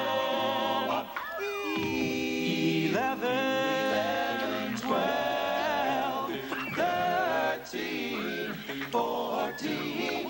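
A doo-wop vocal group singing a cappella in close harmony, with a low bass part under higher voices, counting up through the numbers.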